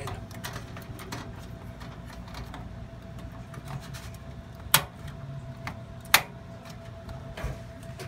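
RAM modules being handled and pressed into a desktop motherboard's memory slots: small plastic clicks and knocks, then two sharp snaps about a second and a half apart as the slot latches lock. A thin steady tone runs underneath.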